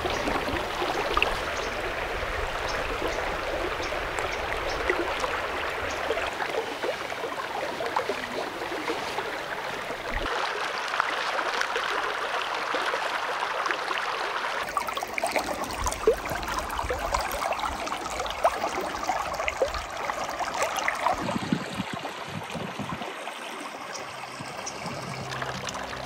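Stream water running steadily, a continuous rushing and trickling with many small splashes.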